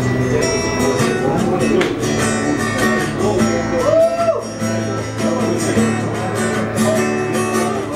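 Takamine acoustic guitar strummed and picked, playing a steady accompaniment of ringing chords and notes.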